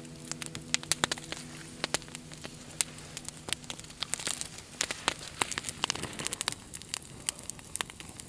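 Small wood campfire crackling, with irregular sharp pops and snaps from the burning twigs.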